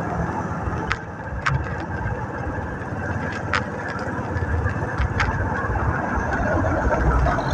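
Motorcycle traffic at a crawl, heard from a rider's machine: engines running among the surrounding motorcycles and vehicles, with an uneven low rumble on the microphone and a few sharp clicks.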